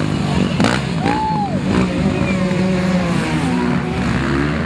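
Motocross motorcycle engines running steadily, with crowd voices in the background and two short sharp noises in the first two seconds.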